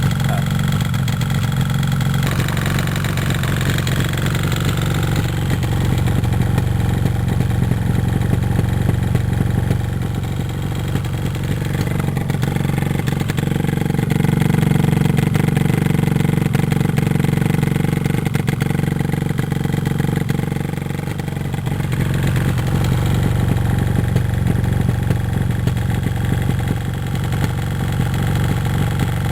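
Yamaha RD250LC's two-stroke parallel-twin engine running steadily, its note easing briefly about ten seconds in and again about twenty-one seconds in.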